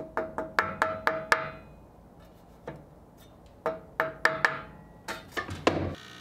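Light, quick taps on a table saw's rip fence, nudging it over a hair. The taps come in short runs of several a second, each with a brief ring, with pauses between the runs.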